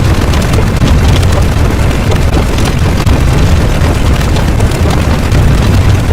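Loud, continuous rumbling roar without a break, heaviest in the deep low end, a sound effect of the explosion or eruption kind.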